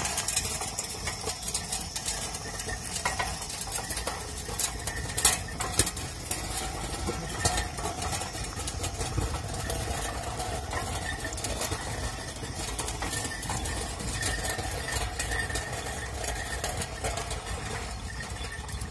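Loaded bullock cart rolling on an asphalt road: its wooden, metal-rimmed wheels and frame rattle in a steady run of clinks and knocks, with a few louder knocks about five to seven seconds in.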